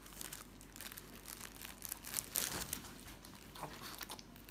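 Soft bread being torn apart by hand at close range: irregular crinkly, tearing bursts, the loudest about two seconds in.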